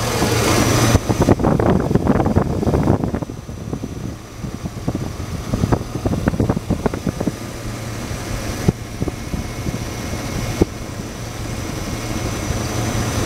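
Engine of a 2005 Chevrolet 2500HD utility truck idling steadily, with bouts of crackling and clicking a second or two in and again about six seconds in.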